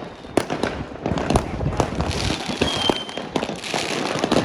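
Fireworks going off nonstop: a rapid, irregular string of bangs, with a crackling stretch in the middle and a short whistling tone about two and a half seconds in.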